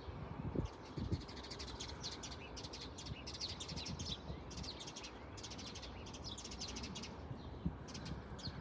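Songbirds chirping in rapid, high trilling bursts that repeat every second or so, over a steady low background noise.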